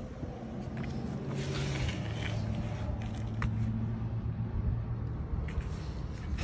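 A motor vehicle engine running with a steady low hum that fades after about five seconds, with a few light clicks over it.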